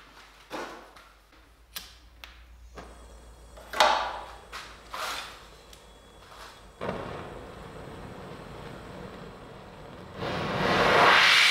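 A few knocks and clatters of metal and tools being handled. Then an oxy-fuel gas torch is lit about seven seconds in and burns with a steady soft rush. Near the end it jumps to a loud hiss as the valves are opened and the flame flares into a blue jet.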